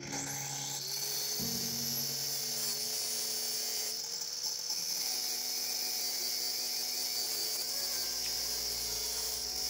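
Angle grinder with a cutting disc running and cutting into a metal piece clamped in a bench vise: a steady, high-pitched grinding hiss that holds through.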